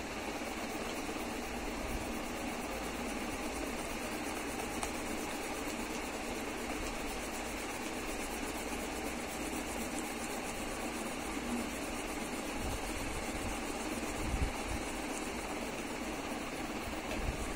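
Steady mechanical hum and hiss, with a couple of soft low bumps near the end.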